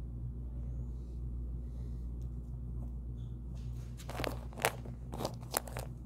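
In-ear monitor earpieces and their braided cable handled by hand: a quick cluster of five or six small clicks and rustles starting a little over halfway through, as the cable's connector is worked onto an earpiece, over a steady low hum.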